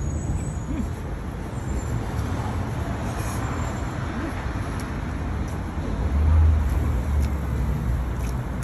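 Street traffic noise: a steady rumble of passing vehicles, with a louder low rumble swelling about six seconds in.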